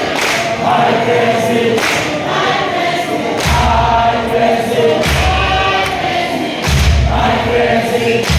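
A congregation sings a hymn together, many voices at once. From about three and a half seconds in, a deep low pulse joins the singing about every second and a half.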